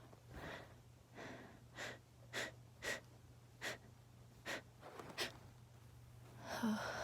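A woman sniffling and breathing through an itchy, allergy-irritated nose, in short noisy bursts about one every half second to second, then a longer, louder breath near the end.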